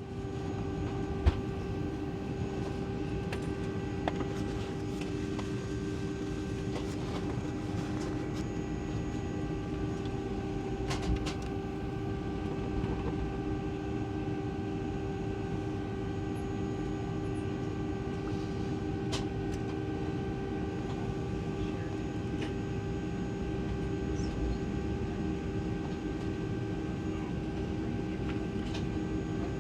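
Boeing 757-200's Pratt & Whitney PW2037 turbofans heard inside the passenger cabin, running steadily as an even hum with several steady whining tones and no spool-up. A sharp click comes about a second in, and a smaller knock near the middle.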